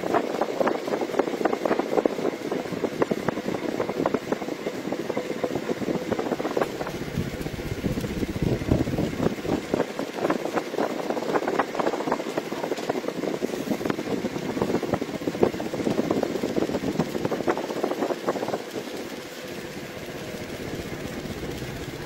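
Homemade ceiling fan running: a steady motor noise with a dense, irregular rattle, which eases and evens out near the end.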